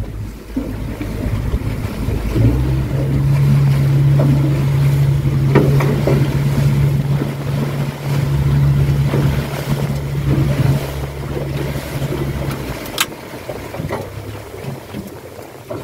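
Outboard motor running steadily as the boat travels, over wind and water rushing past. The steady engine note drops away about three-quarters of the way through.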